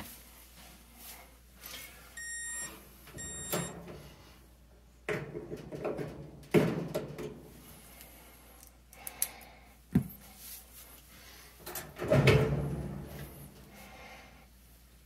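Two short electronic beeps, such as a dryer's control panel gives when its buttons are pressed, about two and three and a half seconds in. After them come irregular clunks and knocks, with the longest and loudest near the end.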